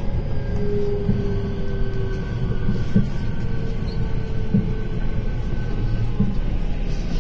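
Cabin of a JR West 223 series 2000 electric commuter train running along the line: a steady low rumble of wheels on rail, dull thumps every second or two, and a faint steady whine above it.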